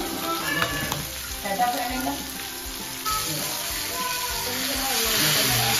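Masala-coated whole fish sizzling as they shallow-fry in a little oil on a tawa; the sizzle grows louder about halfway through.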